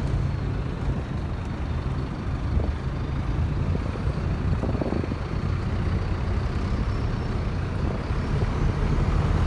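City bus engine running low and steady, heard from inside the cabin, over a haze of street traffic noise.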